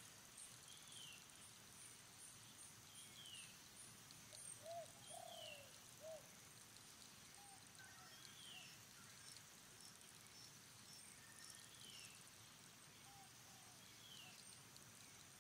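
Faint outdoor ambience of birdsong: a bird repeats a short falling whistled note every couple of seconds, with a few lower, slightly louder calls around the middle. A faint high pulsing buzz stops about three seconds in.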